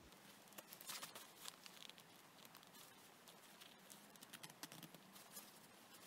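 Faint, irregular little snaps and rustles of a seam ripper cutting tight stitches in a winter coat's fabric.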